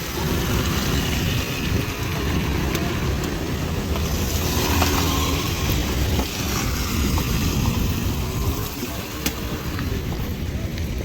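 Sea waves surging and washing on the shore, a steady low rumble with a hissing wash that swells about four to five seconds in.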